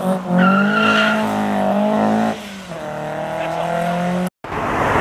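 Modified Mk3 Ford Fiesta's engine revving hard as the car accelerates away, its pitch climbing, then dropping at a gear change about two seconds in before climbing again more gently. The sound cuts off suddenly near the end and gives way to traffic noise.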